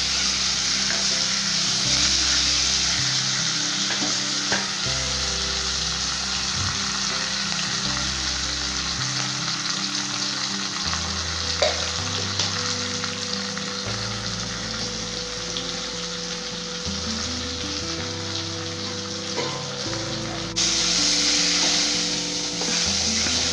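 Food frying in hot oil in a pan: a steady sizzle with the odd clink of stirring, over a soft background tune. The sizzle dips about 20 seconds in and comes back louder near the end.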